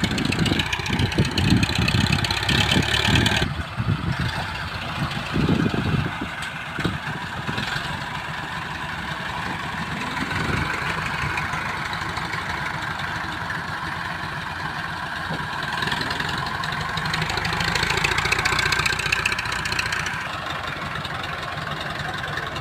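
Tractor's diesel engine running, loudest in the first few seconds and again briefly around five seconds in, then settling to a steadier run.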